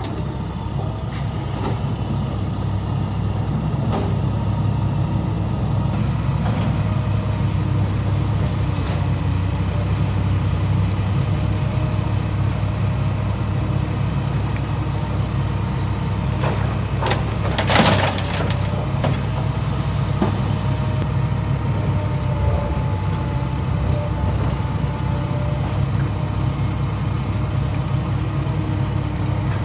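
A heavy diesel engine of construction machinery runs steadily with a low drone. A brief, loud burst of noise comes a little past halfway through.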